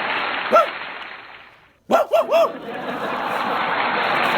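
Snoring done as dog-like yelping barks: one short yelp about half a second in, then three quick yelps about two seconds in, over a steady hiss. The hiss fades out briefly just before the three yelps.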